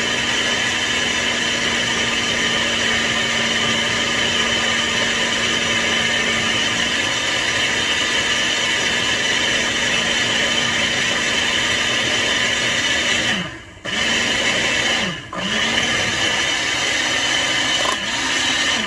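Electric countertop blender motor running steadily while blending a frozen-fruit smoothie. Near the end the motor cuts out twice, briefly, with the pitch sagging and picking back up, and then it stops.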